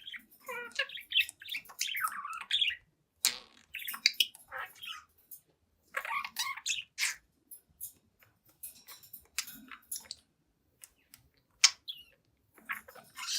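Young budgerigar chattering and warbling in dense bursts of a second or two through the first half, then only scattered short clicks and chirps.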